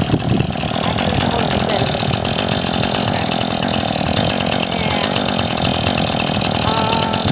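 Two-stroke gas chainsaw running steadily at high speed while cutting into a log.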